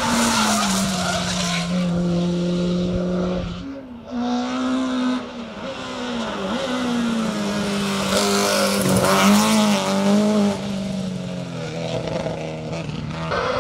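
Rally car engines revving hard up a hill-climb course, the engine note holding, then dropping and wavering as the drivers shift and come off the throttle, with a break about four seconds in where a second car takes over.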